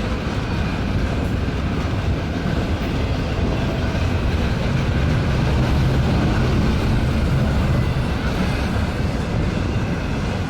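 Freight train rolling past at speed: a steady, loud low rumble of steel wheels on rail, swelling a little in the middle.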